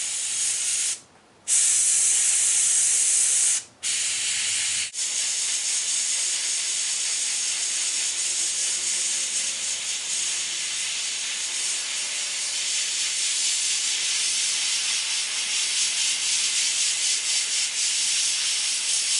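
Airbrush spraying paint with a steady high hiss of air, stopping for about half a second about a second in and briefly twice more a few seconds in as the trigger is released, otherwise hissing on.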